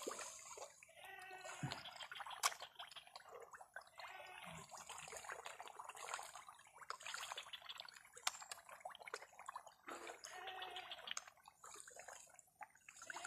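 A crowded shoal of pond fish churning at the water's surface: faint, irregular small splashes, drips and slaps of water.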